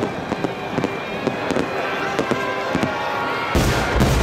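Large aerial fireworks shells bursting close by: a dense run of sharp cracks and bangs, then a heavy low boom about three and a half seconds in.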